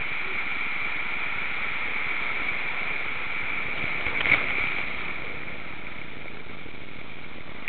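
Steady rush of water as an inflatable tube slides down an enclosed water slide and out onto a lazy river, with one short, louder splash about four seconds in.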